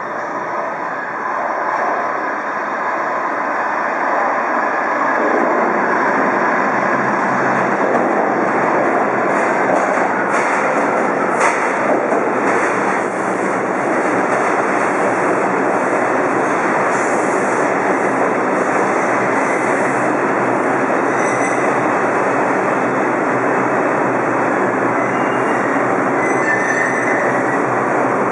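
R142 subway train pulling into an underground station. The rumble of its approach builds over the first few seconds, then the steady, loud running noise of wheels on rails and motors fills the station as the cars roll along the platform.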